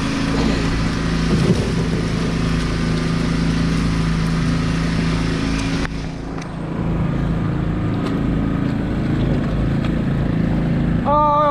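An engine running steadily with an even, low hum under a noisy hiss. The hiss drops away about six seconds in.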